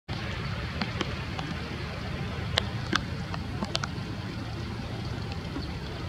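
Steady low outdoor background rumble, with several short, sharp clicks scattered through it, the loudest about two and a half and three seconds in.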